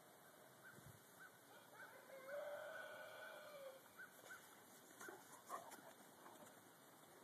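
A dog howling faintly in one drawn-out call of about a second and a half, in the middle, with a few short high chirps around it. A cluster of soft clicks and rustles follows about five seconds in.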